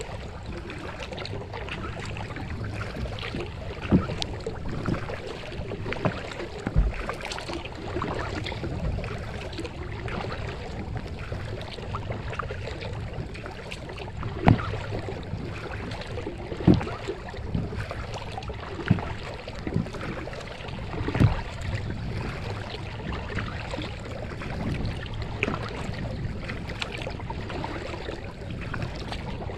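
Kayak being paddled on calm water: a steady wash of water splashing and trickling around the paddle and hull, with a few sharper thumps every few seconds.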